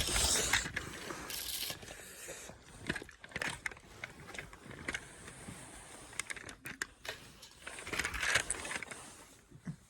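Toy cars being rolled and handled: irregular scraping and clicking, loudest in a burst at the start and again about eight seconds in.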